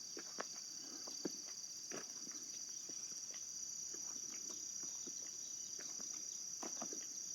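Steady, high-pitched chorus of summer insects, with faint scattered footsteps through grass.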